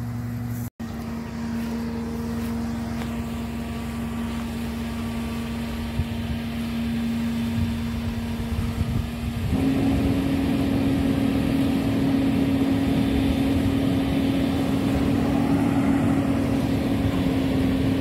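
Engine of a tilt-bed delivery truck carrying a shed, running steadily, then revving up to a higher, louder speed about nine and a half seconds in.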